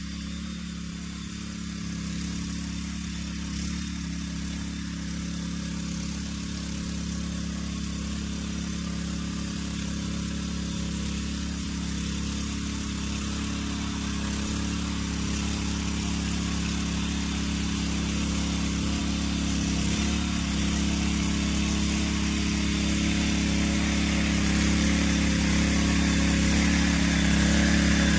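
Small engine of a walk-behind rotary tiller running steadily as it churns soil, growing louder as the machine approaches.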